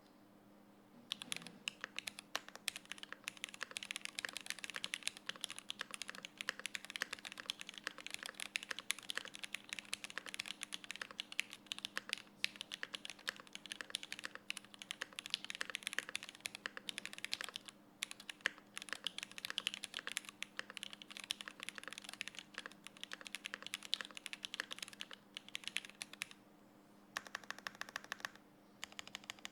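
Fast, continuous typing on a Smith & Rune Iron165 R2 mechanical keyboard with a forged carbon fibre plate, Gateron Oil King linear switches lubed with 205g0, TX stabilizers, GMK keycaps and no sound dampening. The typing starts about a second in and has a few short pauses near the end.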